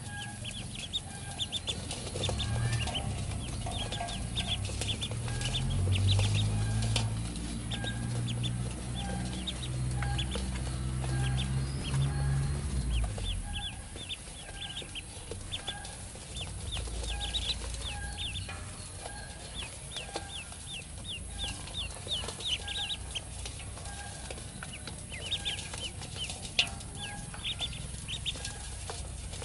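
Ducklings peeping continuously in rapid, high-pitched chirps. A low hum runs underneath through the first part and stops a little before halfway.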